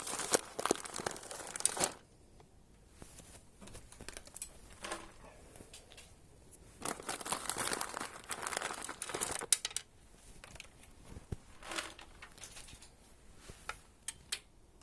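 Rustling and crinkling with scattered sharp clicks as dried corn is handled and scattered, in two main bursts: one at the start and one about seven seconds in.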